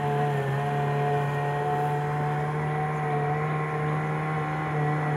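Small motor on a long wooden motorboat running steadily, a constant, unchanging engine hum.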